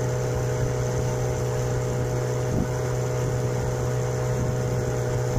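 An engine running at a steady speed: an even low hum with several steady higher tones over a hiss.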